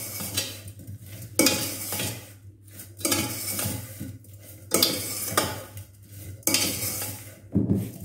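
A metal spoon scraping and clinking against a stainless steel pot as sliced bananas are stirred with sugar, in strokes about every one and a half seconds.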